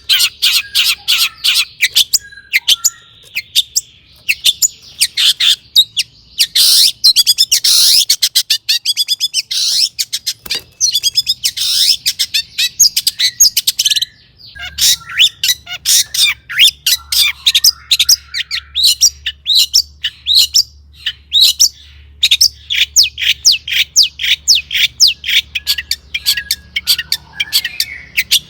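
Long-tailed shrike (cendet) in full song: a loud, rapid string of sharp, harsh chirps and chatter. There is a brief pause about fourteen seconds in.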